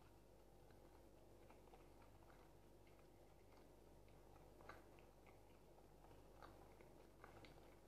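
Near silence: faint room tone with scattered soft clicks, one slightly louder about halfway through and a few more near the end.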